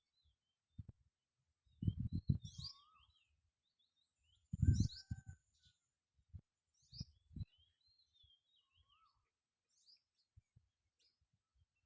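Small birds chirping and twittering in short high calls scattered throughout. Brief bursts of low rumble, loudest about two seconds in and again near the five-second mark, stand out over the birds.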